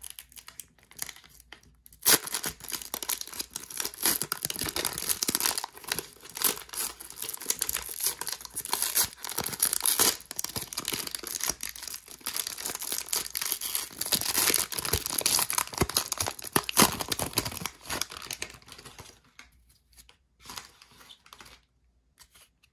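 The wrapper of a 2022 Donruss football hanger pack being torn open and crinkled by hand: a long stretch of crackling tearing and rustling that dies down to a few soft handling sounds near the end.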